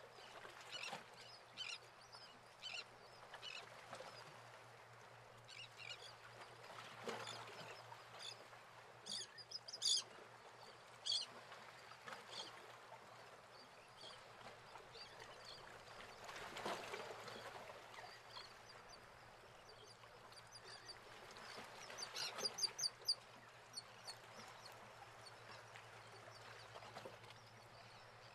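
Bird calls: short, high chirps in quick runs, loudest about ten seconds in and again around twenty-two seconds, over a faint steady outdoor hiss.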